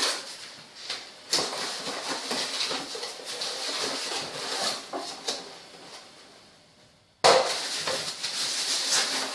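Irregular knocks and light clattering of hard objects being handled, with a sudden louder knock about seven seconds in.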